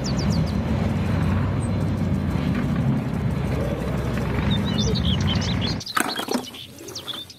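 Main battle tank driving across dirt, its engine and tracks making a steady low rumble, with a few bird chirps on top near the end. The rumble cuts off abruptly about six seconds in, leaving faint scattered clicks.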